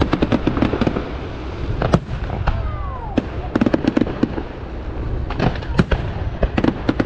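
Fireworks display: aerial shells bursting with sharp bangs and crackling reports, coming in quick clusters. A short falling whistle sounds about two and a half seconds in.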